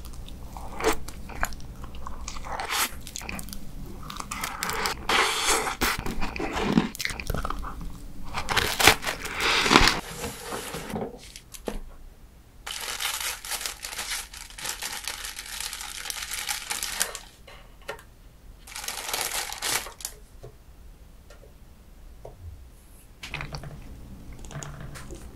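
Close-miked eating and dessert-handling sounds: chewing and biting into cream cake and cookies, with crackling clicks and a few longer stretches of rustling and scraping between bites.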